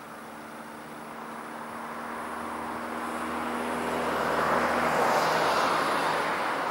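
A vehicle approaching, growing steadily louder to a peak about five seconds in, with a steady hum that stops at about the same time.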